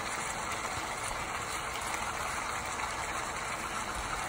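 Chinese cabbage stir-frying in a nonstick wok, with a steady sizzling hiss.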